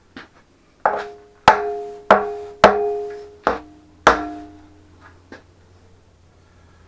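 About six sharp blows on metal, roughly half a second apart, each leaving a clear ringing note of the same pitch as it dies away. The strikes come during the strip-down of the engine.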